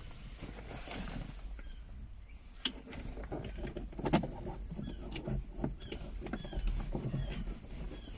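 Scattered clicks and knocks of hand work in a car's interior: small Torx screws being driven in with a T10 screwdriver and plastic parts handled. Short high chirps recur about once a second.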